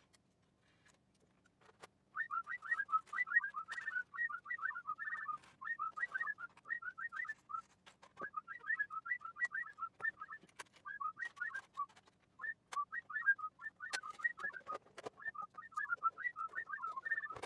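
Someone whistling a tune, sped up so the rapid notes chirp like birdsong, starting about two seconds in. Sharp clicks of a screwdriver and parts on the metal chassis are scattered through it.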